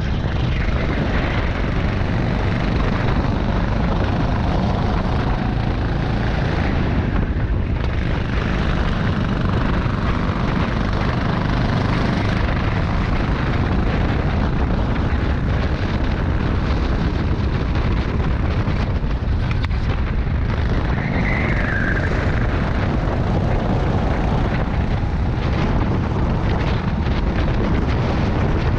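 Rental go-kart running at racing speed, heard from the onboard camera: a steady drone mixed with heavy wind buffeting on the microphone. A brief high squeal comes about two-thirds of the way through.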